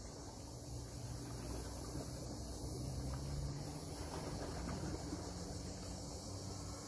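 Steady outdoor ambience: high, continuous insect chirring over a low rumble on the microphone.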